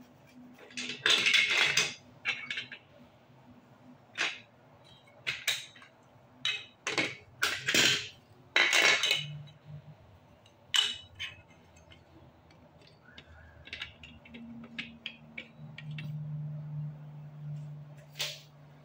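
Hard plastic Lego Duplo bricks clattering and clicking as hands rummage through a pile and fit pieces together, in irregular bursts of knocks and rattles. The loudest bursts come about a second in and again around eight to nine seconds in.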